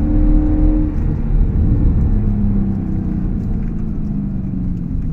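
Audi S5 with an AWE Tuning aftermarket exhaust driving, heard from inside the cabin. The engine note holds, drops about a second in, then sinks slowly as the car eases off.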